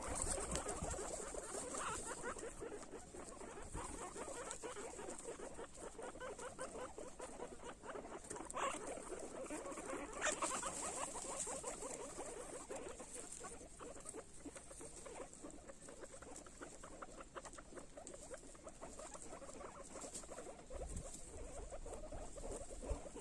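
Guinea pigs eating: a dense, continuous run of small crunching, chewing clicks.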